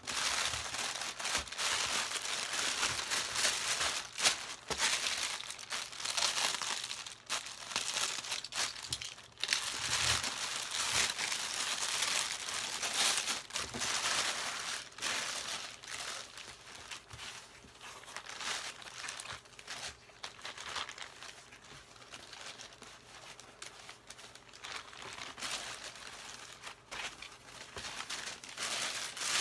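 Plastic packaging crinkling and tearing as it is unwrapped, with scattered small knocks. It is busiest and loudest in the first half and quieter after that.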